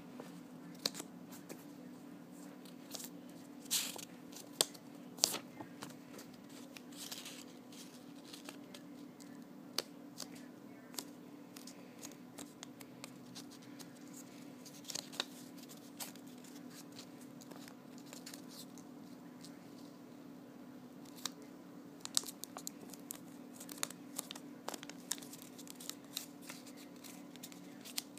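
A square of sticky-note paper being folded and creased by hand: irregular sharp crackles and rustles as folds are made and pressed flat, over a steady low hum.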